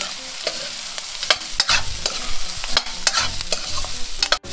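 Sliced radish, onion, garlic and ginger sizzling as they sauté in a stainless-steel wok. A metal spoon stirs and scrapes them, clinking against the pan in irregular ticks. The sound cuts out for a split second near the end.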